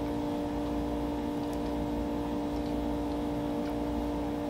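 A steady hum that holds one even level throughout, with a few faint, light clicks.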